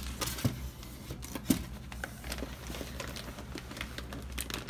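Plastic fish-shipping bags and packing rustling and clicking as hands rummage inside a styrofoam shipping box, with a sharper knock about half a second in and another about a second and a half in.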